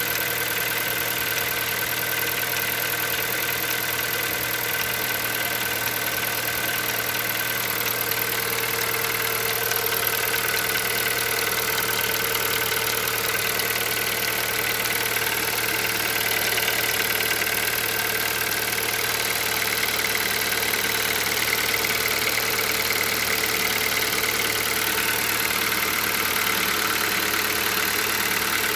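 Hyundai Solaris 1.6-litre four-cylinder petrol engine idling cold, with a steady knock from the engine. This cold-start knock is the fault whose cause the owner is asking about.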